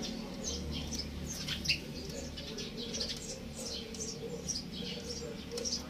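Small birds chirping: many short, high chirps that drop in pitch, several each second, over a faint steady low hum.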